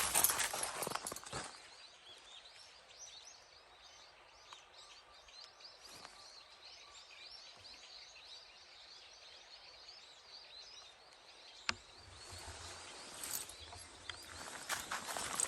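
Footsteps crunching on a snowy road fade out in the first second and a half, leaving a quiet stretch with faint, rapid high-pitched chirping and one sharp click near the end. The footsteps start up again over the last few seconds.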